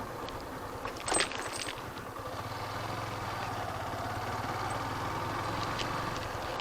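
Motorcycle engine running steadily at low speed. There is a brief rattle about a second in.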